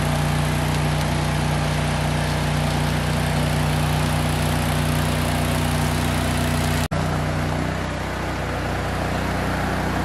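Stick welding on steel rail: a welding machine runs with a steady hum under an even arc hiss, broken for an instant about seven seconds in.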